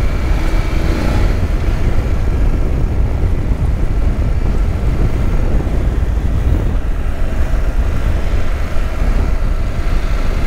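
Motorcycle being ridden: a steady, loud wind rumble on the rider's microphone, with the engine's running faintly beneath it.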